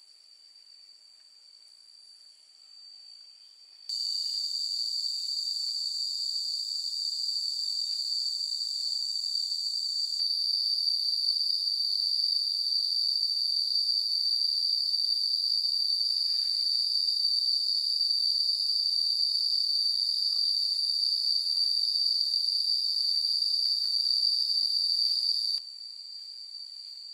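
A steady, high-pitched insect chorus drone. It comes in loud and abruptly about four seconds in and falls back to a faint level just before the end.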